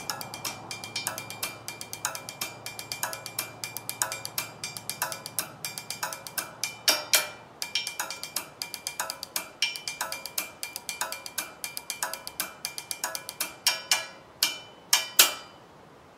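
Drumsticks beaten on a roadside guardrail in a fast, steady drum groove of sharp strikes with a ringing tone. It ends in a few loud accented hits about a second before the end.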